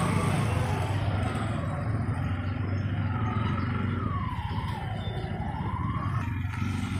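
Scooter and motorcycle engines running at low speed in street traffic, a steady low hum.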